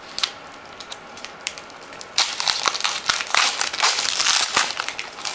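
Plastic wrapper of a trading-card pack crinkling as the pack is opened by hand, starting about two seconds in after a few light clicks.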